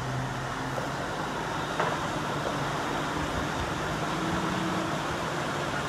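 Steady vehicle engine noise: a low hum under an even hiss, with one short click about two seconds in.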